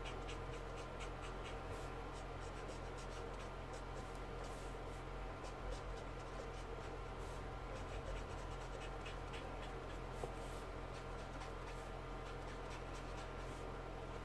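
Winsor & Newton Brushmarker alcohol marker stroking across paper: many short, quick scratchy strokes as orange is blended into the fur, over a steady low hum.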